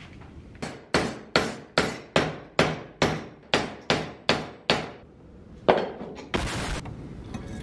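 Hammer blows on a steel strip clamped in a bench vise, about a dozen sharp ringing strikes at a steady two to three a second, bending the metal for a bracket. One more blow follows after a short pause, then a brief burst of noise near the end.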